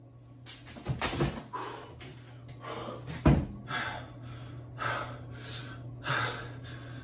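A man breathing in short, quick, audible breaths, nervous and on edge. A single sharp thump comes about three seconds in.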